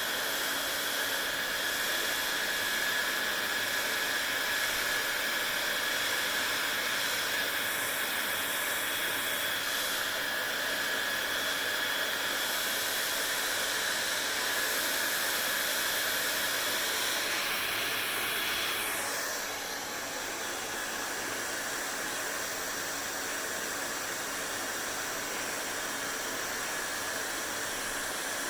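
Hair dryer running steadily, a rushing airflow with a thin high whine over it. About two-thirds of the way through, the pitch slides down and the sound gets a little quieter, then carries on steadily.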